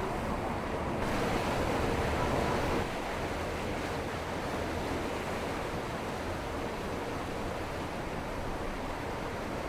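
Rushing water and wind noise, with a steady wash that swells for a couple of seconds about a second in.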